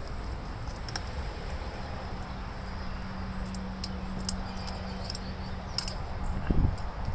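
Faint small metal clicks and ticks of needle-nose pliers working at a rusted spark plug fitting, over a steady low outdoor rumble; a steady hum joins in the middle, and louder handling noise comes near the end.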